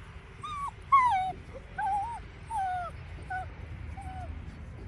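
Seven-week-old puppies whining and yelping in a string of short, high, wavering calls, about seven in all. The loudest call comes about a second in.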